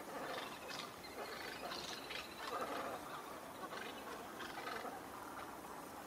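A large mixed flock of ducks and swans calling over one another on a river, with many short overlapping calls. A thin whistled note runs for about a second, starting about a second in.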